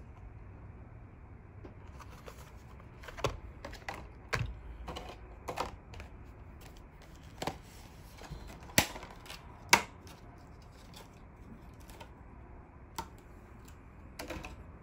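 Irregular light clicks and taps of the plastic blister packs on carded Hot Wheels die-cast cars being handled, with two sharper clicks a little past the middle.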